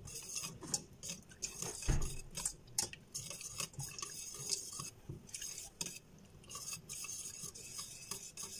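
A whisk stirring quickly in a stainless steel saucepan of milk, dissolving gelatin: a run of quick, irregular clicks and swishes as the wires hit the pan, with one louder knock about two seconds in.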